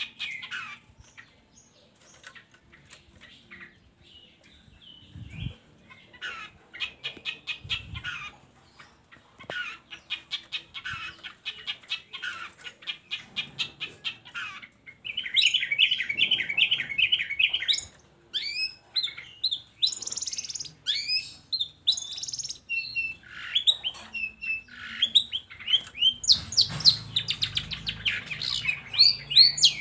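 Long-tailed shrike (cendet) song: a varied, chattering run of rapid trills and sharp, scratchy notes. It is sparse for the first few seconds and then turns into dense, fast trilling, loudest about halfway through and again near the end.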